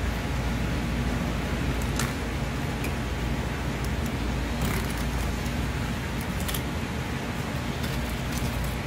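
Steady low background rumble, with a few short ticks and scrapes of a long knife slicing along a small yellowtail's backbone on a plastic cutting board.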